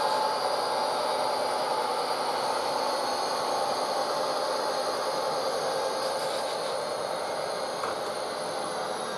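HO-scale model freight train rolling past: the running noise of the cars on the track, mixed with the diesel engine sound from the locomotives' Tsunami 2 sound decoders. The sound is steady and slowly fades as the train moves away.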